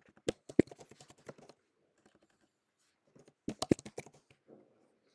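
Typing on a computer keyboard: two short runs of quick keystrokes, the first in the opening second and a half, the second starting about three seconds in.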